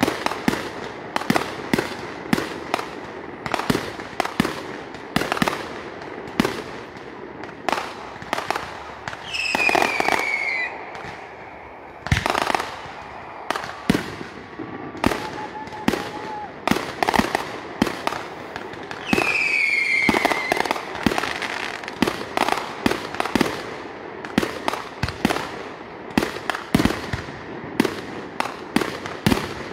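Fireworks display going off: a rapid, unbroken string of sharp bangs and crackling reports, several a second. Twice, about a third and two-thirds of the way through, a falling whistle cuts through the bangs.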